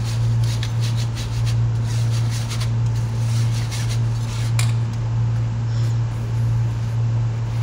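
Wire whisk rubbing and scraping flour through a metal mesh sieve in quick repeated strokes, which die away after about four and a half seconds. A steady low hum runs underneath throughout.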